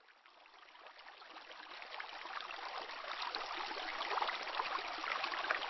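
Running water of a flowing stream, a steady babbling rush that fades in from silence and grows gradually louder.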